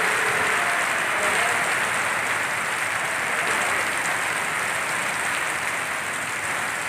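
Very heavy monsoon downpour: a steady, dense hiss of rain falling on a flooded street.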